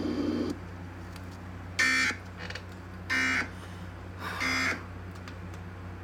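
Emergency Alert System end-of-message tones: three short, shrill bursts of SAME digital data chirping, about a second and a half apart, signalling that the alert broadcast is over. A steady low hum runs underneath.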